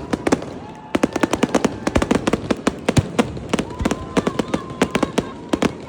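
Fireworks display going off: a rapid, continuous crackle of sharp bangs, many per second.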